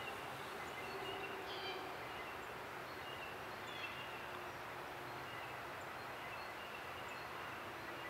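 Quiet woodland ambience: a steady background hiss with faint, scattered short bird chirps.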